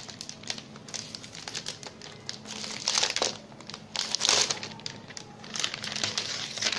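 Clear plastic protective bag crinkling and rustling as a laptop is slid out of it: a run of crackles with louder bursts about three seconds in, around four seconds in and again near the end.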